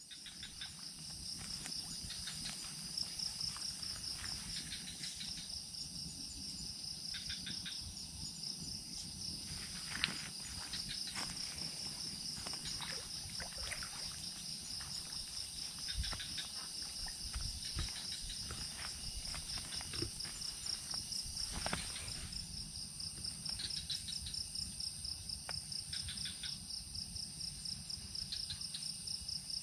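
A chorus of night insects, crickets trilling in a fast steady pulse, with a few faint knocks and a low rumble underneath.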